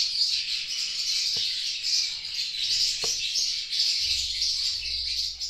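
A dense, continuous high-pitched chirping chorus, with a couple of faint light taps.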